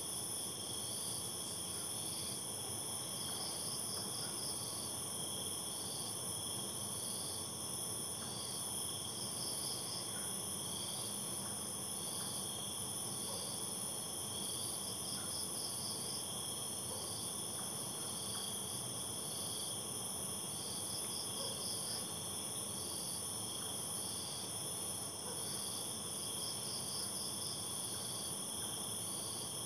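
Night insects chirping: several steady, high-pitched trills at once, with one insect chirping in short pulses about once a second.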